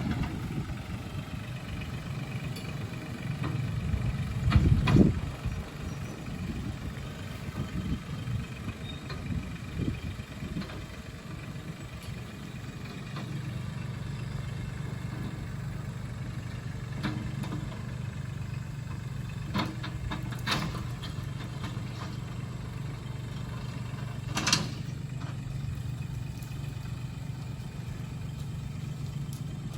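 A motor vehicle engine running steadily at low speed, with a louder surge about five seconds in and a few scattered knocks and clatters.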